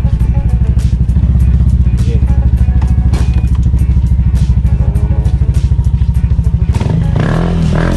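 Yamaha Aerox scooter's single-cylinder engine idling with a steady, fast, even pulsing.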